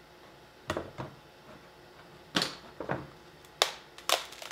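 Thin sheet of clear sugar glass cracking in a metal baking sheet as the pan is twisted and the candy pressed to release it: about six sharp separate cracks and snaps.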